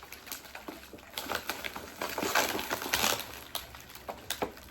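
Packaging being torn open and crinkled by hand: a run of irregular crackles and rustles, densest and loudest about two to three seconds in.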